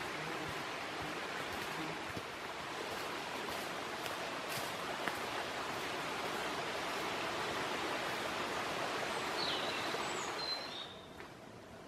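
Steady rush of a nearby mountain stream that falls away about ten and a half seconds in, with a few short high bird chirps near the end.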